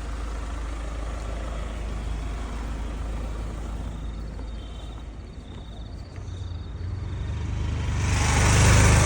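Steady low running noise of a diesel SUV on the road. About seven seconds in, a louder rushing vehicle noise swells up and peaks near the end.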